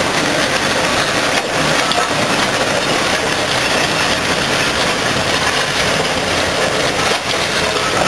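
1934 Aveling & Porter steam road roller on the move, its engine and iron rolls and wheels on the ground making a steady noise.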